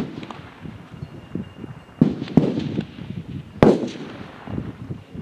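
Rifle shots from several F-Class competitors on the firing line at a 600-yard match: sharp cracks at irregular intervals, each with a short echo. The loudest comes about three and a half seconds in, after a pair of shots about two seconds in.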